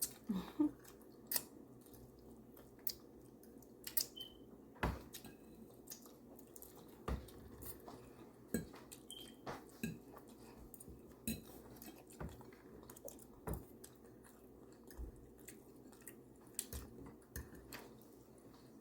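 Cutlery clicking and scraping against plates and bowls in scattered, irregular sharp clicks, with chewing, over a faint steady room hum.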